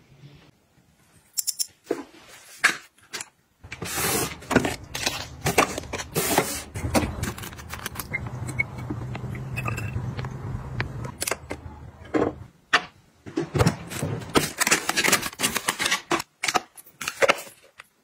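Close-up household handling sounds: a quick run of clicks, taps and clatters of small objects being picked up and set down on hard surfaces. Around the middle, liquid is poured from a spout pouch into a glass bottle, over a steady low hum.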